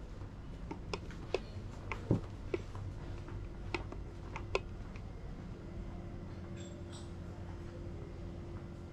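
Footsteps clicking on a hard floor, a string of sharp steps in the first few seconds, over a steady low hum; a faint steady tone joins about three seconds in.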